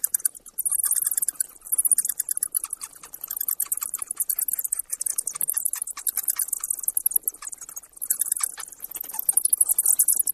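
Bat chittering: rapid, high-pitched squeaks and clicks in quick runs, loudest in stretches about a second in and again near the end.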